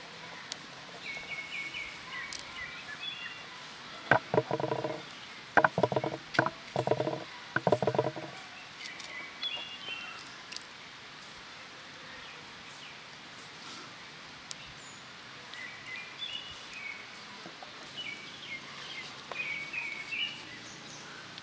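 Outdoor ambience with small birds chirping on and off throughout. About four seconds in, a quick run of five or six loud, short pitched sounds with sharp starts comes from an unidentified source.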